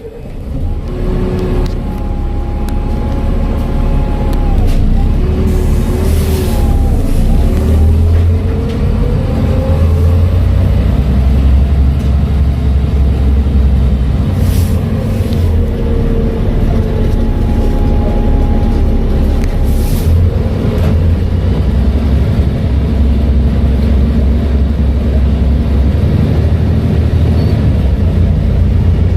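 Volvo B7TL bus's engine and Voith automatic gearbox running under way: a deep engine rumble with whining tones that rise and fall as it changes speed, and three short hisses.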